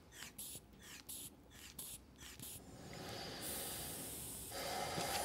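Manual blood pressure cuff being pumped up and let down: the rubber bulb is squeezed about three times a second, each squeeze a short puff of air. A little under three seconds in, the pumping stops and a steady hiss follows as air is let out of the cuff while the pressure is read.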